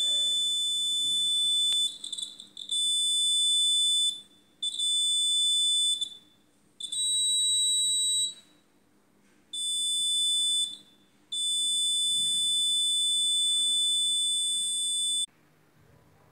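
Piezo buzzer of a CD4011 NAND-gate luggage alarm sounding a steady, high-pitched electronic tone that switches on and off in six bursts of one to four seconds as the alarm's wire loop is handled. The longest burst comes last and cuts off about a second before the end.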